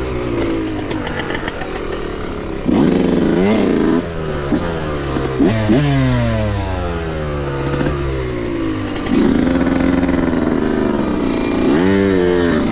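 Yamaha dirt bike engine revving as it is ridden. The pitch climbs sharply when the throttle opens, about three seconds in and again near nine seconds, and falls away in long downward slides as it slows in between.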